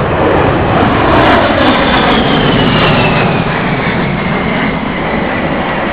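Low-flying A-10 Thunderbolt II military jets passing over: a loud jet roar with a whine that falls in pitch as they go by.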